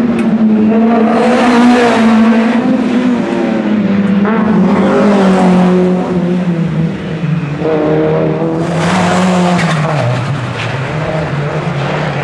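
Rally car engines running at high revs as the cars are driven hard through a corner. The engine note falls slowly, and three louder, harsh surges come as cars pass: one about a second in, one around the middle and one after about eight and a half seconds.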